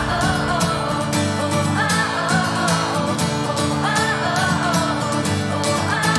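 Recorded band music: drums and bass under a melody phrase that recurs about every two seconds.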